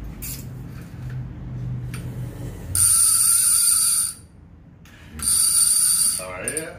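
Avet lever-drag fishing reel's clicker ratcheting in two fast, high-pitched buzzing runs, the first about a second and a half long and the second about a second, with a short pause between.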